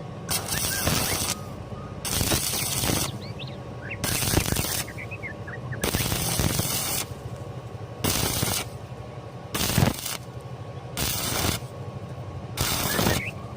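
Stick-welding arc crackling in about eight short bursts with pauses between, each lasting under about a second.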